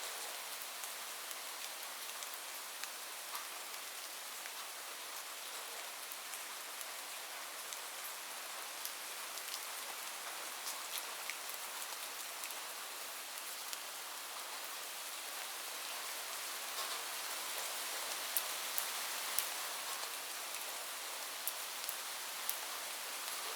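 Heavy rain falling on a roof: a steady hiss with many sharp individual drop ticks, growing a little louder in the second half. No thunder.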